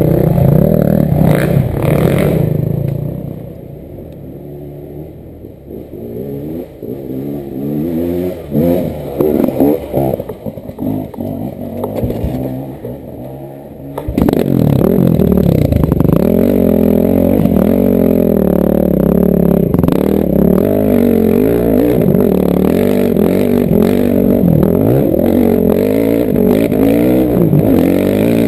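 Single-cylinder enduro dirt bike engine, heard from the rider's helmet: running under throttle at first, then dropping to low revs with short blips of the throttle, then pulling hard again about halfway through and running steadily at high revs to the end.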